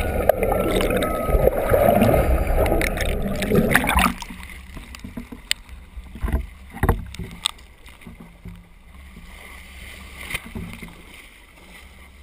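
Sound picked up through a GoPro's waterproof housing on a pole: a loud rushing noise for about four seconds, then a sudden drop to a muffled low hum with scattered knocks.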